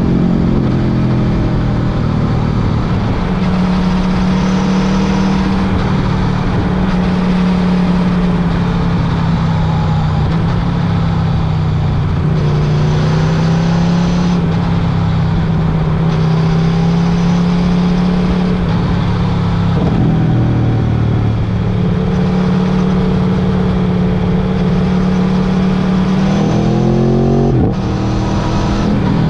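Motorcycle engine running under way at a fairly steady pitch over a continuous rushing noise. The engine note dips briefly and climbs again about twenty seconds in and once more near the end, as with gear changes.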